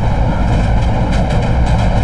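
Diesel locomotive running at speed: a loud, steady rumble and rush, with a few clacks about a second in and again near the end.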